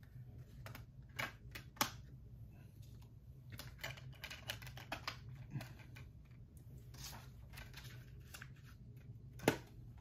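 Plastic and metal clicks, taps and light rustling of a Blu-ray SteelBook and its discs being handled and closed, with a sharp louder click near the end, over a low steady hum.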